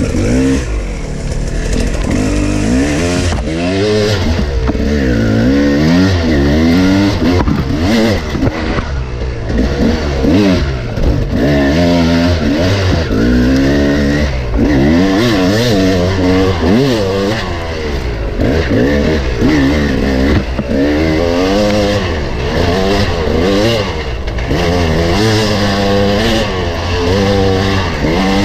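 KTM 300 two-stroke single-cylinder dirt bike engine under way, revving up and down over and over with throttle and gear changes, its pitch rising and falling every second or two.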